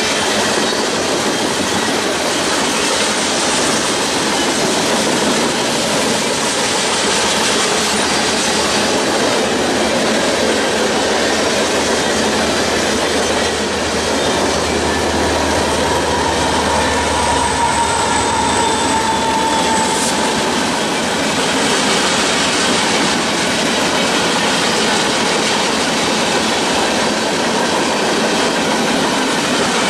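Freight cars of a mixed merchandise train rolling past: a steady loud noise of steel wheels on rail, with a brief high wheel squeal a little past halfway.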